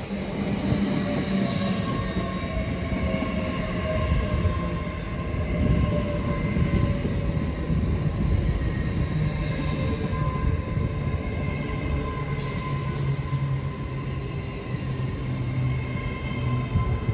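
A passenger train running at close range: a steady low hum with high, steady whining tones from its traction equipment.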